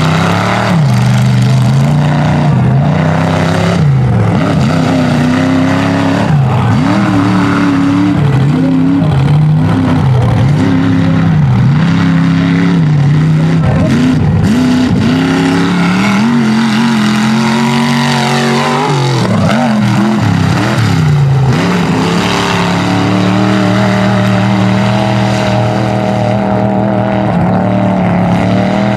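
Mega truck engines running hard, the pitch rising and falling over and over as they rev and ease off; after a brief drop, one engine holds a steadier high pitch through the last several seconds.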